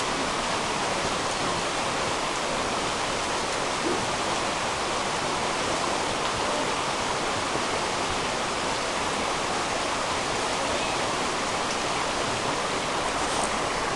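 Steady rushing of flowing water, an even roar that does not change.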